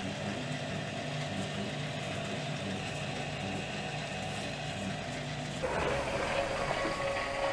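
Electric horizontal dough mixer running as it kneads yeasted hotteok dough: a steady motor hum with a pulsing low drone. About five and a half seconds in, the sound changes suddenly to a louder, noisier hum with a steady higher tone.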